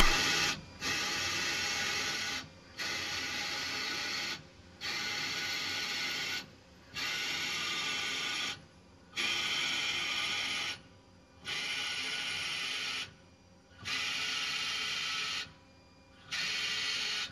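CNC lathe running a G83 peck drilling cycle: a twist drill cuts into a spinning brass bar in repeated pecks of about one and a half seconds each. The cutting sound drops away briefly each time the drill rapids out to clear chips, about nine times in all.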